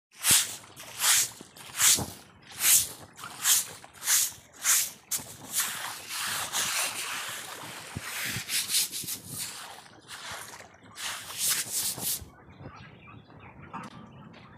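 Long-handled brush scrubbing the floor of a shallow concrete duck pool under water, each stroke a loud swish of sloshing water, about one stroke every three-quarters of a second, then a stretch of steady scrubbing. The strokes stop about twelve seconds in.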